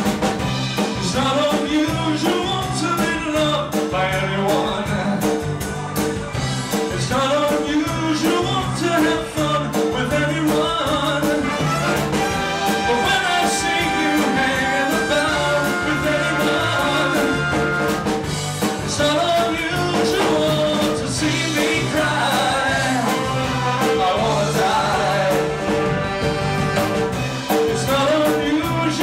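Live band playing an upbeat pop song: drums, electric guitar, keyboard and a horn section.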